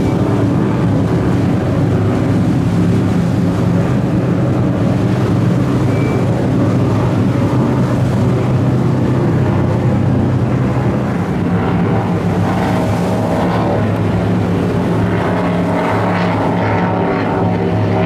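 Steady drone of motorboat engines running on the lake, with a small helicopter flying low over the water.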